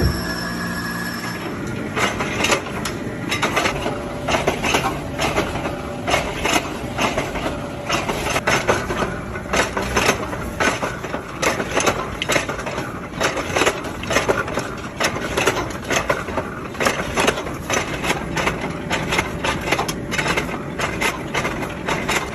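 Nuts clattering and cracking in processing machinery, a dense, irregular run of sharp clicks and cracks over a steady low background noise.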